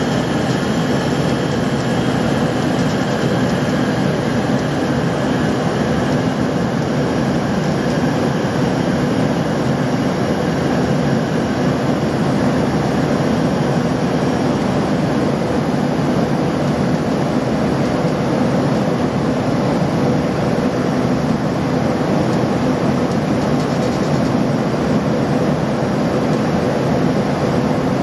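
Steady cabin noise of an Embraer ERJ-145 climbing after takeoff: its two rear-mounted Rolls-Royce AE 3007 turbofans and the rush of airflow heard from a seat over the wing, with a faint steady hum running through it.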